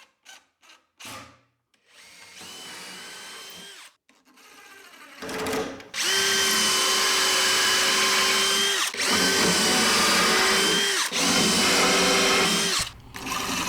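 Power drill running at a steady speed in four bursts, working screws into a wooden cabinet. The first burst is short and quieter; the other three each last two to three seconds. A few light clicks come before them.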